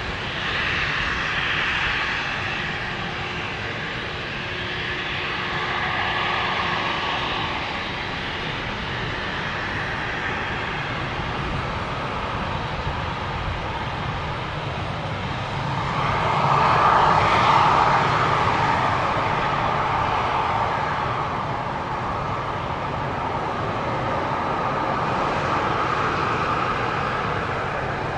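Embraer regional jet's underwing turbofan engines running on the ground, a steady jet whine and rush that swells louder for a few seconds past the middle and then eases back.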